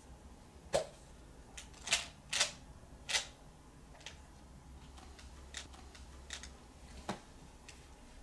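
Small plastic pill bottle being handled in the hands: a few sharp clicks and short rattles, the loudest in the first three seconds, then fainter ticks every second or so, over a low steady hum.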